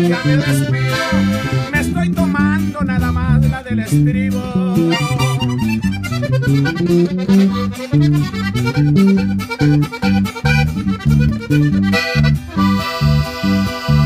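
Sierreño trio playing an instrumental passage: a diatonic button accordion plays quick melodic runs over a twelve-string acoustic guitar and a pulsing electric bass line. Near the end the accordion plays a repeated chord.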